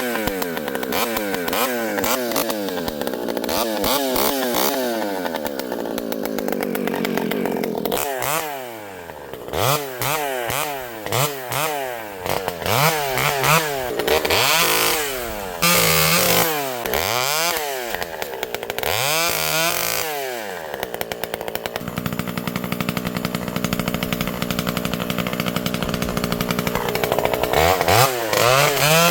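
Vintage Pioneer P51 two-stroke chainsaw running on fast idle, then revved up and let back down repeatedly in quick succession. It settles to a steady low idle and is revved up again near the end.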